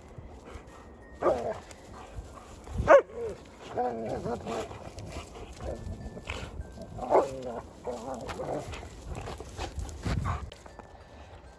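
Two German Shepherds play-fighting, barking and vocalizing in about six short bursts, the loudest about three seconds in.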